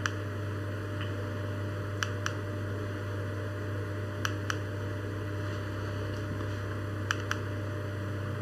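Pairs of short clicks every two to three seconds, like a button being pressed and released as the slideshow steps to the next picture, over a steady low hum and hiss.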